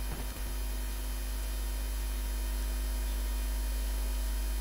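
Steady low electrical hum with faint, unchanging higher tones above it, and no street sound.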